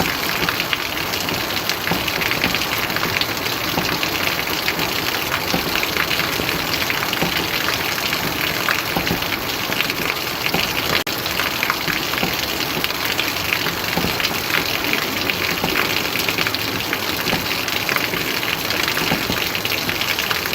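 Steady heavy rain: a dense, even hiss of falling water with many fine drop ticks.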